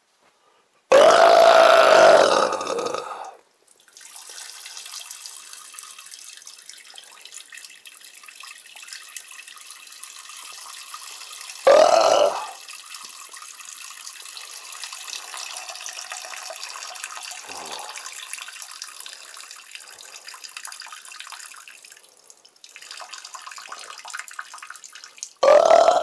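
Three loud burps: a long one about a second in, a short one near the middle and another short one at the end, over a steady hissing, crackling noise.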